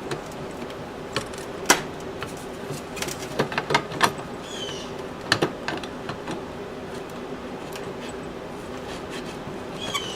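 Scattered light clicks and knocks of small parts being handled and fitted during reassembly of an electric power tool's gearbox housing.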